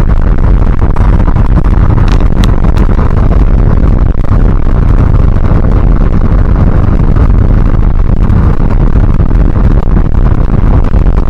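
Vehicle driving at speed: a loud, steady low rumble of engine and road noise, with a few short clicks about two seconds in.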